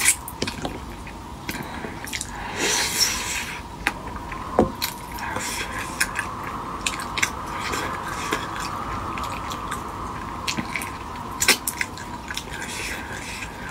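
Close-up mouth sounds of eating a spicy braised rabbit head by hand: wet lip smacks, sucking and chewing, with many short sticky clicks as the meat is pulled from the bones and a longer noisy suck about three seconds in.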